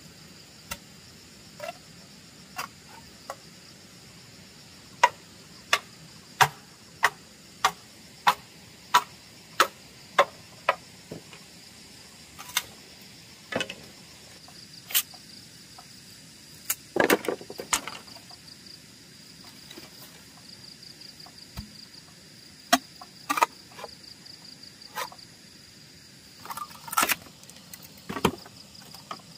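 A series of sharp knocks: a few scattered, then a steady run of about ten at roughly one and a half a second, then more scattered knocks with two short clattering clusters. Insects drone steadily and high-pitched underneath.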